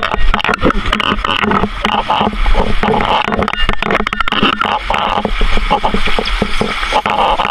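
Water rushing down a sloping rock slide while a board bumps and scrapes over the rock beneath a rider: a steady rush with a rapid, uneven clatter of knocks.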